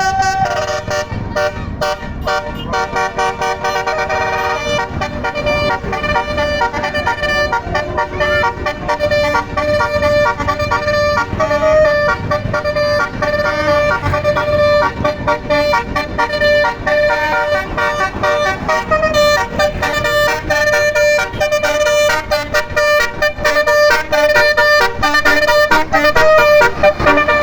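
Basuri telolet horn on a tour bus playing a tune: several horn notes sound together and change in steps, going on without a break.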